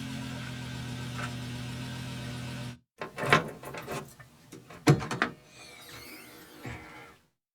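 Car engine idling with a steady hum, then cutting off abruptly about three seconds in. A few sharp clicks and knocks follow, two of them loud.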